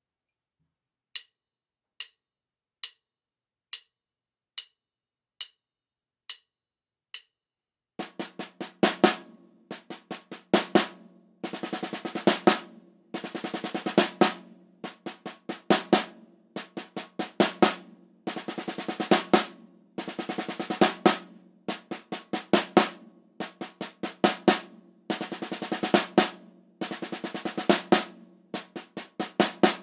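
Eight evenly spaced sharp clicks counting in, then a snare drum played with wooden drumsticks: a 10-stroke roll rudiment, right hand lead, repeated phrase after phrase of rapid strokes.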